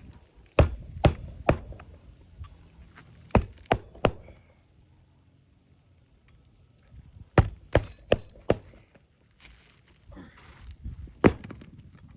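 Hammer blows on a shingle roof, in quick groups of three or four sharp strikes with pauses between, the kind of hammering that nails a replacement asphalt shingle in place.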